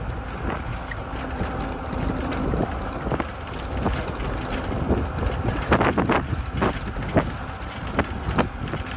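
Wind buffeting the microphone during forward travel, with a steady low rumble and irregular knocks and rattles that come more often in the second half.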